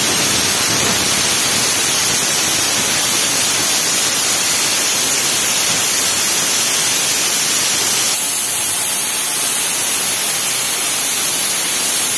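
Pressure cooker's weight valve venting steam in one long, loud, steady hiss: the cooker's 'whistle', a sign that it is at full pressure. The hiss eases a little about eight seconds in.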